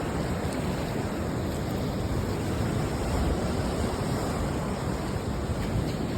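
Steady rushing of ocean surf mixed with wind buffeting the microphone, heavy and low, with no clear breaks or strikes.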